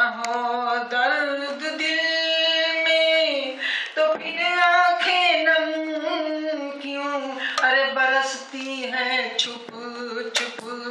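A woman singing an Urdu ghazal into a handheld microphone, drawing out long, ornamented notes on vowels between the sung words.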